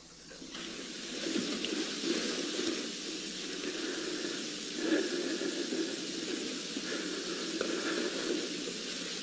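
Steady hiss from the soundtrack of an old video recording, rising within the first second as playback begins, with faint uneven sounds underneath.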